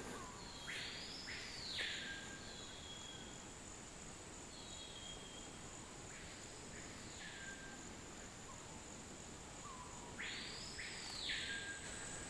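Recently fledged harpy eagle chick calling three times, each call rising then falling and lasting about two seconds; the middle call is fainter. A steady high insect drone runs underneath.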